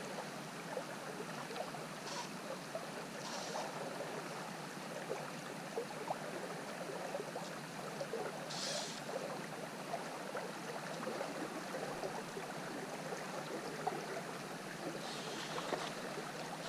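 Steady rush of flowing river water, with a few short, higher hisses now and then.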